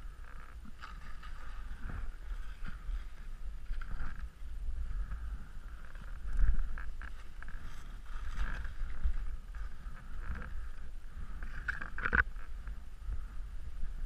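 Skis hissing and scraping through off-piste snow, with wind rumbling on the microphone. A few sharper scrapes break the steady hiss, the strongest about twelve seconds in.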